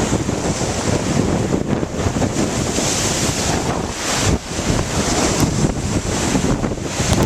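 Hurricane-driven wind gusting hard against the microphone, with lake waves breaking on the shore.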